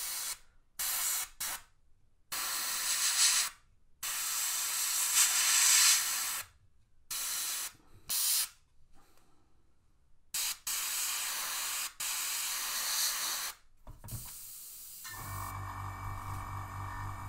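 Airbrush spraying paint in short on-off bursts of hiss as the trigger is pressed and released, a dozen or so in about fourteen seconds. Near the end, background music with a steady beat takes over.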